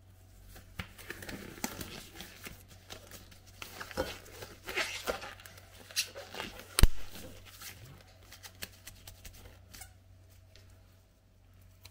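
Close handling noises: rustling and crinkling with scattered clicks, busiest in the middle, and one sharp snap just before seven seconds in.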